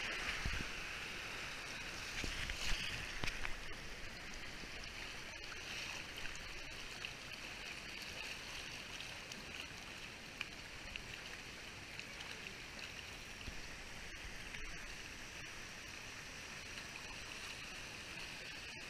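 Shallow, rocky mountain creek rushing over small rapids: a steady wash of moving water, with a few louder splashes about two to three seconds in.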